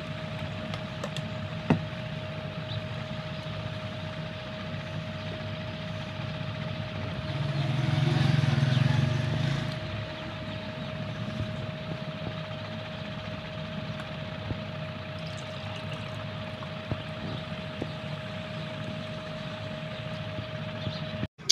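Steady machine hum with a constant high whine, swelling louder for about two seconds near the middle, with a single sharp click about two seconds in.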